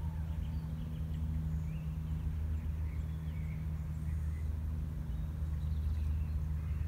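Outdoor ambience: a steady low hum, with faint short bird chirps scattered over it.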